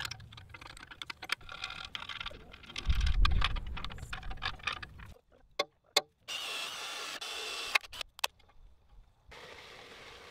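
Hands and tools working on a welded steel frame: scattered clicks and knocks, a low thump about three seconds in, and two short stretches of steady rasping, the first a little over a second long about six seconds in.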